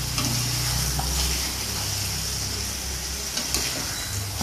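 Fried chicken and boiled eggs sizzling in red spice paste in a wok, stirred with a metal spatula, over a steady low hum. One sharp click of the spatula on the wok comes about three and a half seconds in.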